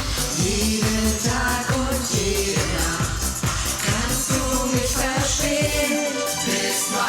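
Pop dance music with a steady beat of deep, falling bass strokes, about three a second; the bass drops out briefly near the end.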